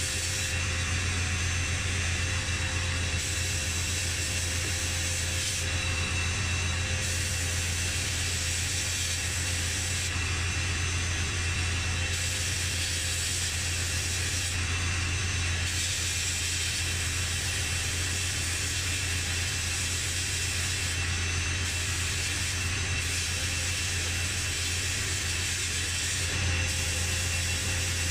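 Abrasive blasting in a media blasting cabinet: a continuous hiss of compressed air and grit from the blast gun stripping paint off a lamp casing, over a constant low hum.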